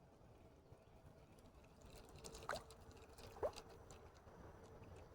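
Near-quiet pond water with two faint, short plops about a second apart, near the middle.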